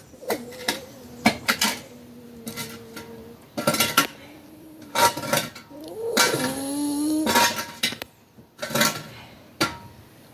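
A sleeping puppy snoring, giving two long whistling snore notes several seconds apart, over frequent sharp clinks and clatter.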